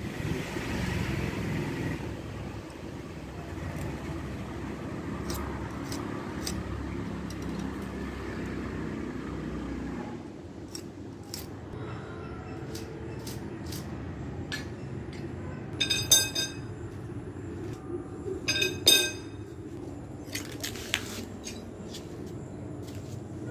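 Steel box-section bar clanking twice with a short metallic ring about two-thirds through, amid lighter taps and clicks. A low steady rumble runs through the first half and stops near the middle.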